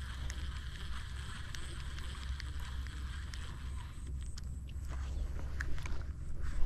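Wind rumbling on the microphone over a steady outdoor hiss, with scattered small clicks and one sharp click near the end.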